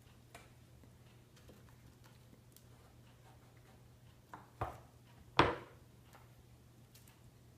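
Honeycomb being cut from a wooden frame with a fillet knife: faint scattered clicks, then two sharp knocks a little past halfway, the second louder.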